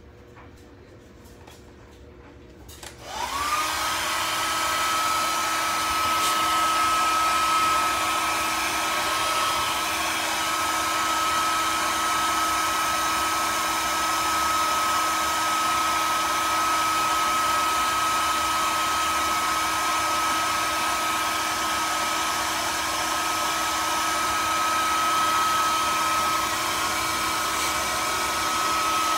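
An electric blower motor switches on about three seconds in, its whine climbing quickly to a steady pitch, then runs steadily with a loud whir of air.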